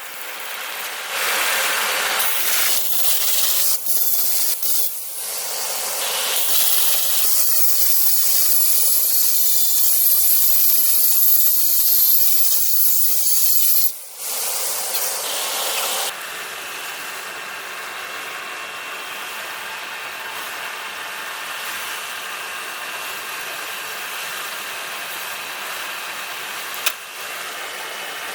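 A power tool working metal: a loud, hissing, high-pitched noise with a few short breaks, stopping about sixteen seconds in. A quieter steady running noise follows.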